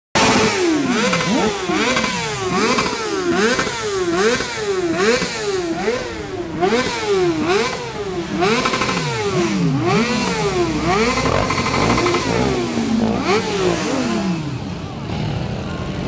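Motorcycle engine revved again and again, the throttle blipped so the pitch climbs and drops about once a second, the revs easing off in the last few seconds.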